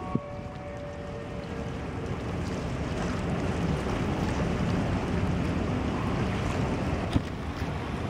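The departing car ferry Prevelis sounds as a steady rush of churning stern wash and engine rumble, mixed with wind buffeting the microphone. It grows louder over the first few seconds, then holds.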